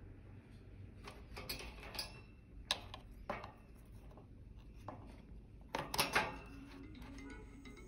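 Quiet handling clicks and taps: fingers on a phone, then a plug-in charger pushed into a power-strip socket, with the loudest clicks and scrapes about six seconds in.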